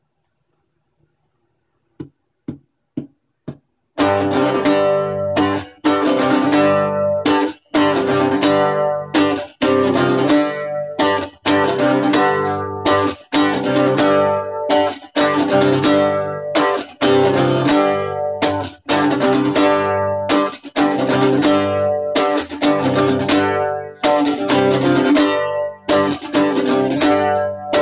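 Acoustic guitar: four short, quiet strokes about two seconds in, then steady rhythmic strumming of chords, with brief breaks at the chord changes.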